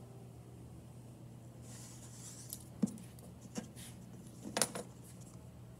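Potter's knife drawn along the edge of a clay slab, cutting a bevel with a soft scraping hiss, then a few light clicks and knocks of the tool and clay on the worktable, the loudest about four and a half seconds in.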